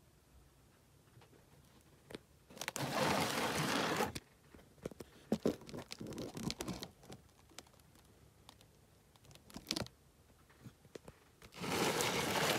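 Two bursts of rustling, scraping noise, each about a second and a half long, with scattered clicks and taps between them.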